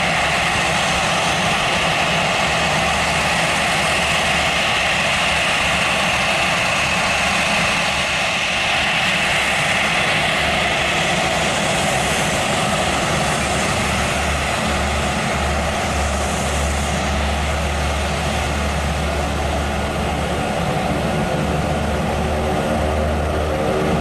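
Aircraft engines running steadily: the twin jet engines of a taxiing Airbus A320-family airliner mixed with the four-engine turboprop drone of a C-130 Hercules. A high whine sits over a low drone, and a deeper layered propeller drone grows near the end.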